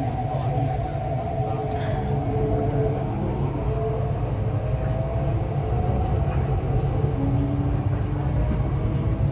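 MTR East Rail line R-Train pulling out of a station and accelerating, heard from inside the carriage: its traction motors whine in several tones that rise slowly in pitch over a steady low rumble of the running train.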